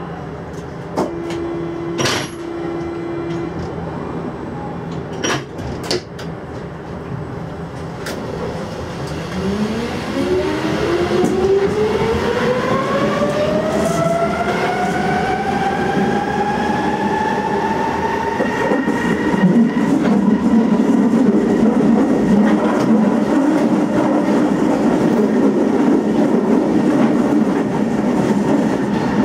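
Berlin U-Bahn GI/1E train pulling away from a station, heard from the driver's cab. A few clicks and a short steady tone come near the start. From about nine seconds in, the traction motors' whine rises steeply in pitch and levels off as the train speeds up. Then louder wheel-on-rail running noise fills the tunnel.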